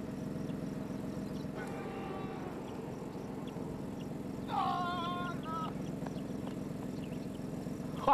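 Steady low hum of an idling vehicle engine. About four and a half seconds in, a short, wavering, high-pitched call sounds over it for about a second.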